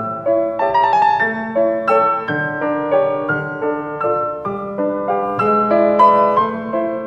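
Piano music: a running line of notes over held lower notes.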